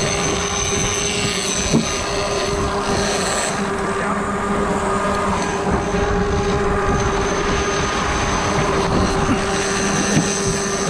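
A boat engine running with a steady hum, under the broad rush of wind and water.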